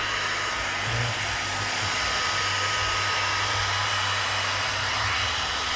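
RUPES electric heat gun running steadily, a constant rush of blown air with a thin motor whine, warming up before heating the dented panel for paintless dent repair.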